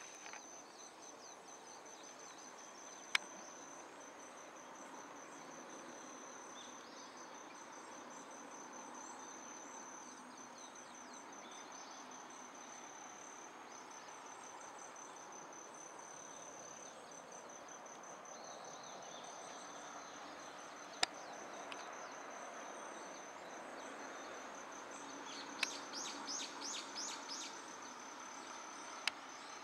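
An insect's steady, high, finely pulsed trill over a faint outdoor hiss. Near the end a bird gives a quick run of chirping notes, and three lone sharp clicks sound across the clip.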